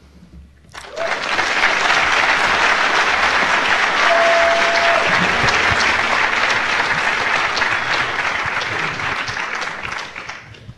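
Audience applauding, starting about a second in and fading out near the end, with a short steady tone partway through.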